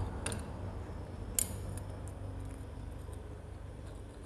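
A few light metallic clicks and clinks as a stack of motorcycle clutch plates on its steel hub is handled, the sharpest about a second and a half in, over a low steady hum.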